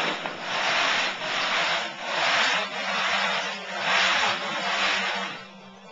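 Rhythmic hand scraping, about five long strokes a second or so apart, over a faint steady hum; the strokes stop shortly before the end.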